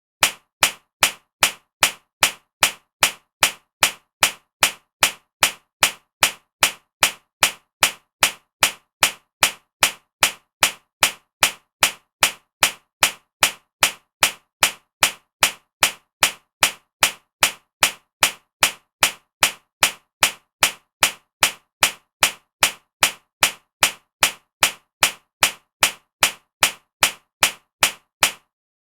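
A slap-across-the-face sound effect repeated as a steady loop: one sharp smack after another, a little under two a second, each the same.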